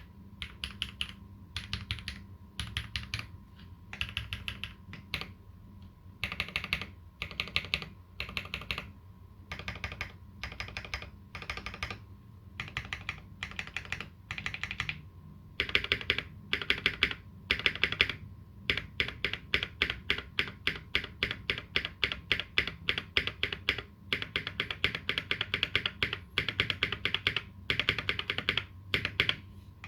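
Typing on a Dolinger RE 2020 custom mechanical keyboard with lubed Holy Panda tactile switches and GMK Olivia keycaps: runs of keystroke clacks in short bursts with brief pauses. The typing gets faster and louder about halfway through.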